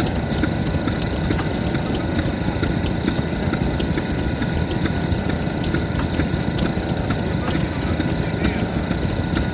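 Kubota FF-type 10 hp stationary engine running steadily.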